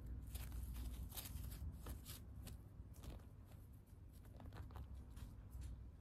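Self-adhesive (cohesive) bandage crackling and rustling as it is pulled and wrapped around a pigeon's body, a scatter of short, uneven crinkly ticks, with a low steady hum underneath.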